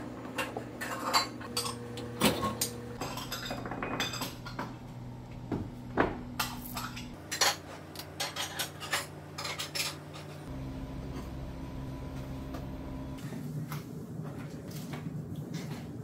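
Metal pots, wire strainers and kitchen utensils clanking and clinking as they are handled and lifted off their hooks. There is a quick string of clanks through the first half, and fewer later on.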